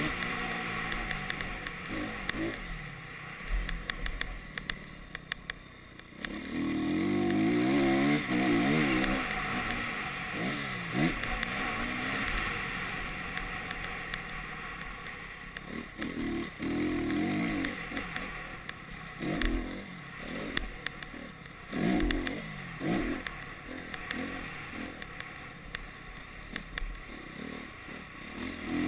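A Honda CRF motocross bike's single-cylinder four-stroke engine revving up in repeated surges and backing off between them while being ridden hard. Scattered sharp knocks come between the surges.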